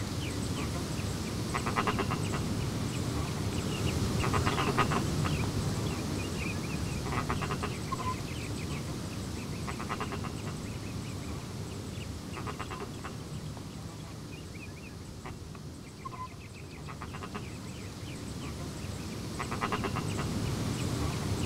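Metal swing chains creaking as an empty swing sways: a short raspy creak about every three seconds, over a low steady rumble.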